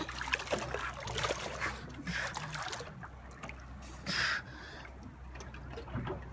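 Water splashing and trickling against a boat's hull as a young elephant seal moves alongside. There is a short, loud hiss of noise about four seconds in.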